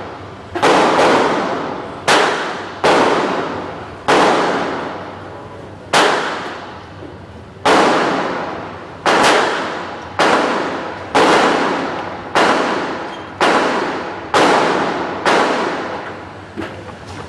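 Handgun shots at a shooting range, about fifteen rounds fired at an uneven pace, half a second to two seconds apart, each shot followed by a ringing echo.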